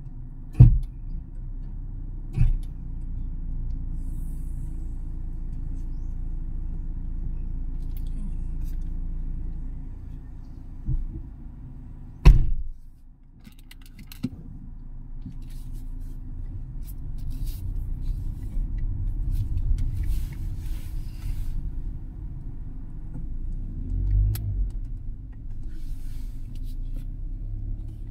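Low, steady rumble of a running motor vehicle, broken by a few sharp knocks, the loudest about twelve seconds in.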